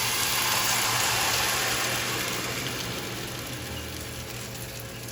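Handvo batter sizzling as it is poured into a hot, oiled handvo pan, a dense hiss that is loudest at first and slowly dies away.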